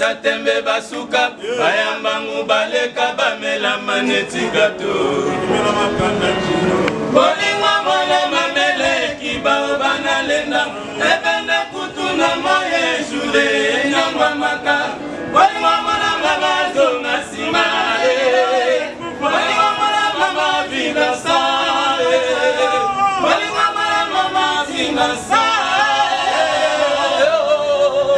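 Several voices singing together.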